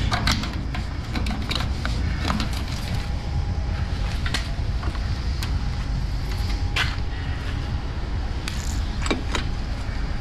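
Inside the cab of a DAF XF truck: a steady low diesel and road rumble with a faint steady tone, and frequent small clicks and rattles.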